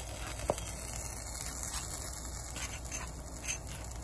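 A spatula scraping and tapping as it spreads soft butter over pancakes on a griddle: a sharp click about half a second in, then a few faint scrapes over a steady low hiss.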